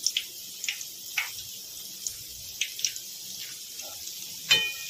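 Methi gota fritters deep-frying in hot oil: a steady sizzle with scattered crackles and pops, as they are turned with a wire-mesh skimmer.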